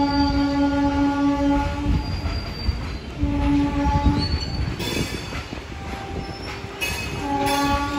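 WAP7 electric locomotive's horn sounding as the express approaches: a long blast that stops about two seconds in, a short blast a little past the middle, and another starting near the end, over a low rumble.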